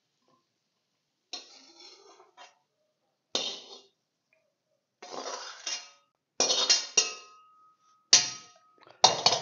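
Metal wok spatula scraping and knocking against a wok as stir-fried pork and green peppers are pushed out onto a plate: a string of short separate scrapes and clinks, about one a second. One clink, about seven seconds in, leaves a ringing tone for nearly two seconds.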